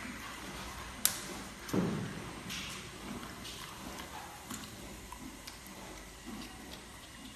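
Giant panda biting and chewing a bamboo shoot: irregular sharp crunches and snaps, the sharpest about a second in, followed by a low thump.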